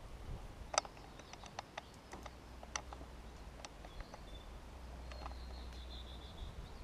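Scattered sharp clicks and taps of handling on a selfie-stick camera as it is turned, about a dozen in the first four seconds, over a faint low rumble. A faint high wavering call comes near the end.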